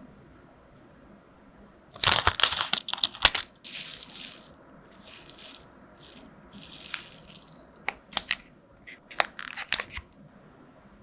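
Close-up crinkling and crackling handling sounds. A loud crackly burst comes about two seconds in, then softer hissing rustles, then scattered sharp clicks near the end.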